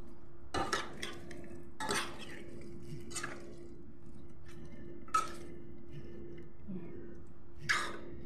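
Metal spoon stirring pork pieces in a stainless steel pot, knocking and scraping against the pot's side with several sharp clinks spread out. A steady low hum runs underneath.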